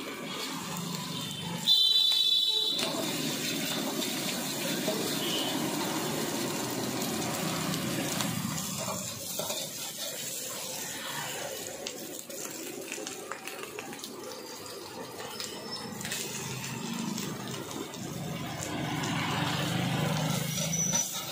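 Eggs and vegetables frying in hot oil in a large wok: a sudden loud sizzle about two seconds in, then steady sizzling while they are stir-fried with a metal ladle, growing louder again near the end as shredded cabbage is tossed in.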